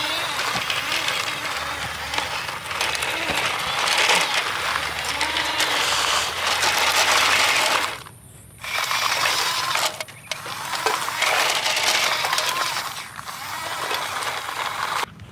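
Toy RC dump trucks driving on gravel: their small electric motors and plastic gearboxes whir, the pitch rising and falling as they speed up and slow, while the tyres crunch and rattle the stones. The sound drops out briefly about eight seconds in and again just before the end.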